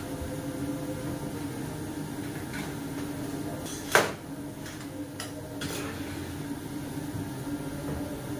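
Metal baking tray clanking sharply against the oven rack or door as it is pulled out of the oven, followed by a few lighter metal clinks, over a steady low hum.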